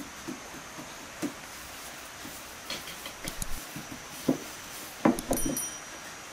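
Scattered soft knocks and pats of dough being worked by hand on a floured wooden board. About five seconds in, a click and a brief high chime sound.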